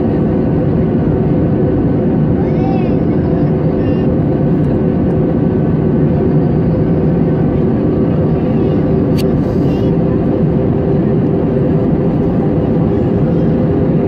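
Steady jet airliner cabin noise: the dense, even rumble of engines and airflow with a few steady hums in it, heard from inside the cabin. A short faint click sounds about nine seconds in.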